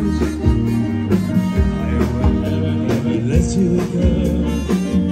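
Live band music with electric guitar, bass and drums keeping a steady beat, with some singing.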